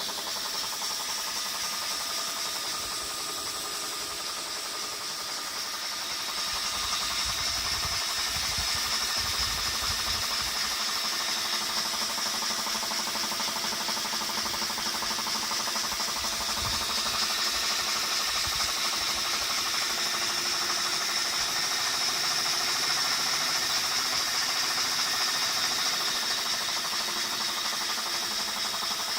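A motor running with a rapid, steady knocking, the 'tok tok tok' noise taken as a sign of a fault. It gets a little louder about six seconds in.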